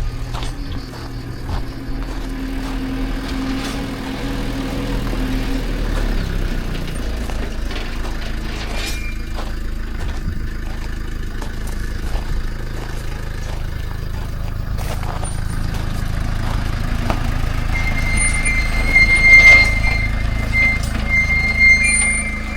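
A vehicle engine running steadily, with a high-pitched squeal in the last few seconds.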